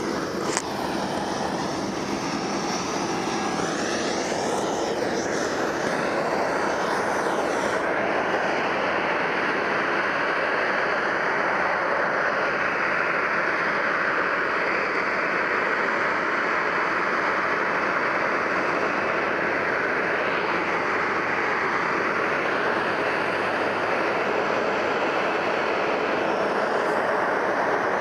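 Jet engines of a Boeing 737-700 taxiing at low thrust, its CFM56-7B turbofans giving a steady loud rush. A whine slides up and down in pitch during the first several seconds.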